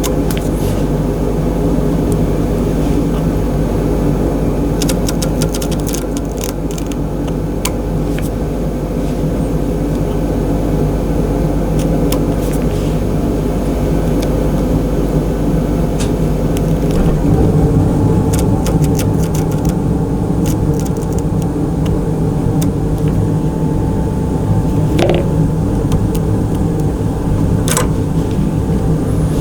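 Steady low mechanical hum, with a run of small clicks a few seconds in and scattered light ticks later.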